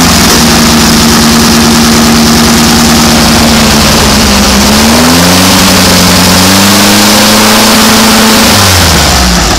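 2276 cc air-cooled Volkswagen flat-four revved and held at raised revs for about four seconds, dipping briefly, then revved up again and held before dropping back toward idle near the end. The engine is still warming up from a cold start.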